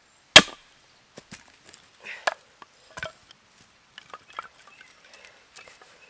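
A hatchet splitting seasoned firewood, which the splitter takes for ash: one loud, sharp chop about a third of a second in, then a few lighter knocks and clatter of wood as the split pieces are handled.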